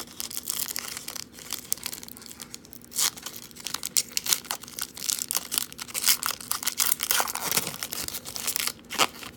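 Foil wrapper of a 2018 Donruss football card pack being torn open and crinkled by hand: a dense run of crackling rips, with the sharpest tears about three seconds in and just before the end.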